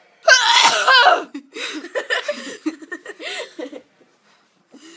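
Hard laughter: a loud, wavering, high-pitched shriek of laughter about a quarter second in, then a run of short laughs that dies away shortly before the end.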